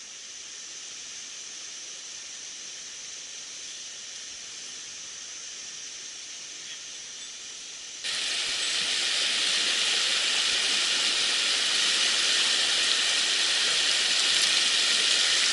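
Mountain stream water rushing, a steady hiss; about eight seconds in it turns abruptly louder and brighter.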